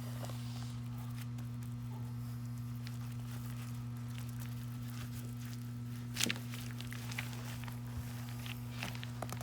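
Soft, scattered rustles and clicks of hands kneading resin into a felt pipe-repair sleeve, over a steady low electrical hum; the sharpest rustle comes a little after six seconds in.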